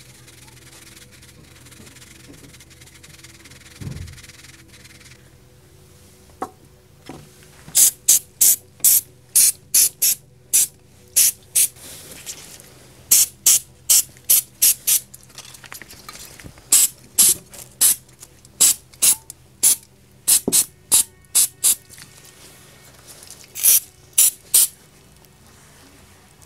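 Short, loud hissing bursts of an aerosol spray can, in runs of about two a second with brief pauses, spraying paint stripper onto a die-cast toy tractor body. Before them, faint brush scrubbing.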